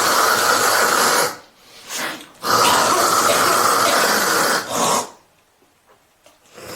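A woman hawking up phlegm from her throat: two long, harsh rasps of about two seconds each, with a short one between them.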